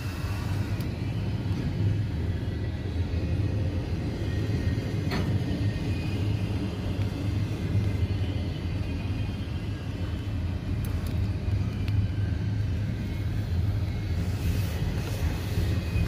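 Double-stack intermodal freight train rolling past, its well cars making a steady low rumble on the rails, heard from inside a car.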